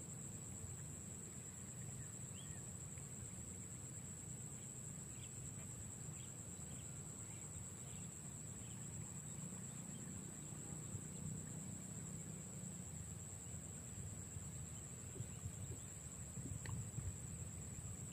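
Insect chorus: a steady, high-pitched cricket-like drone that does not change, with a low rumble underneath and a few faint short chirps in the first half.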